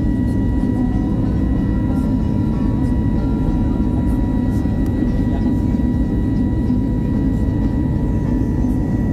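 Airbus A320neo cabin noise at a window seat beside the engine in the climb after takeoff: the jet engines and airflow make a steady, dense low roar, with a thin steady whine above it.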